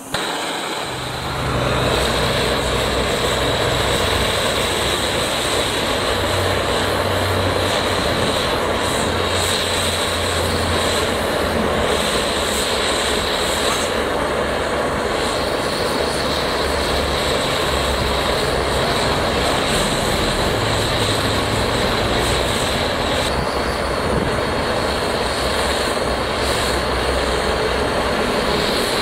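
Handheld gas-canister blowtorch with a brass burner tube lighting and burning with a loud, steady rush of flame that comes up to full within the first couple of seconds.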